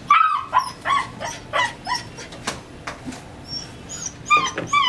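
Old English Sheepdog puppy whimpering in a quick string of short, high-pitched cries, two or three a second, with a brief pause midway.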